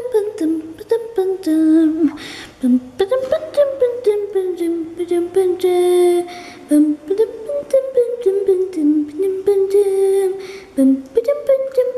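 A high voice humming a wordless tune with held notes and sliding pitch, with many small clicks scattered through it.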